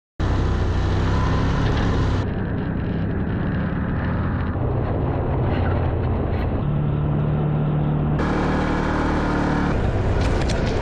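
Side-by-side UTV (Can-Am Maverick Sport) engine running steadily as it drives a dirt trail, recorded from on board with driving noise. It starts abruptly a moment in, and its tone changes suddenly a few times.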